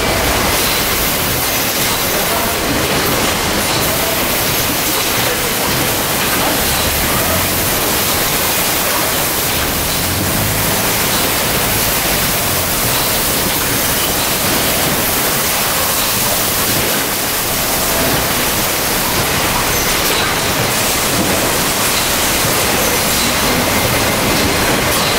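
Steady, loud hiss and rumble of a running palletizing line with its conveyors, with no distinct knocks or rhythm standing out.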